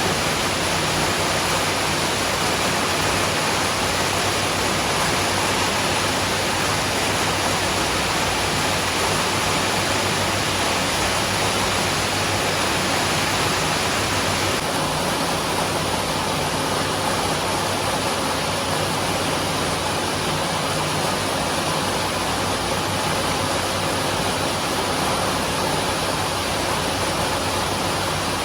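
Steady rushing noise with no clear rhythm or tone, changing slightly in character about halfway through.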